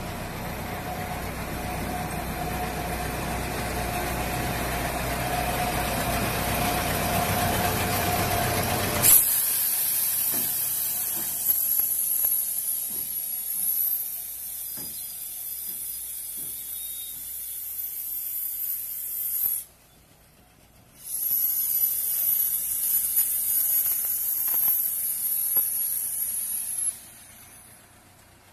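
Sentinel diesel shunter running as it hauls a rake of oil tank wagons past, a heavy rumble carrying a steady squeal. About a third of the way in the sound changes abruptly to a quieter passage of high hiss and scattered light clicks from the passing wheels, with a brief drop to near silence about two-thirds in.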